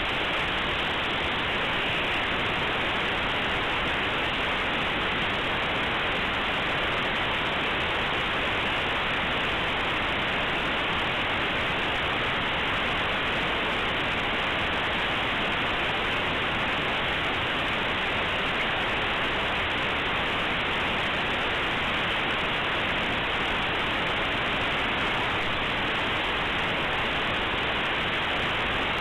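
Compressed Linux kernel image played as raw audio through aplay: a steady, unchanging static-like noise. Nothing in it rises above about 4 kHz, which fits aplay's default 8 kHz sample rate.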